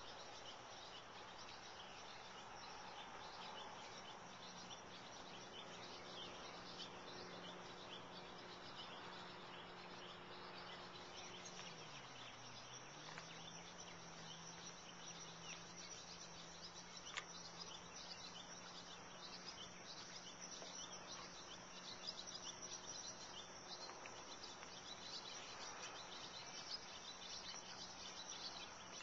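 Faint evening chorus of insects chirping steadily, with scattered bird chirps, over a steady low hum that dips briefly and comes back about halfway through.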